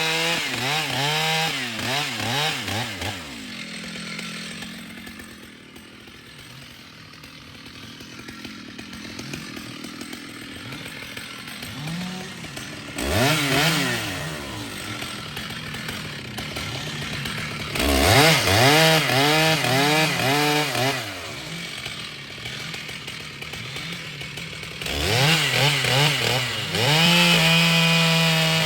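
Stihl two-stroke chainsaw held at a steady high pitch, dropping to a low idle for several seconds, then revved up and down in repeated blips several times before settling back to a steady high pitch near the end.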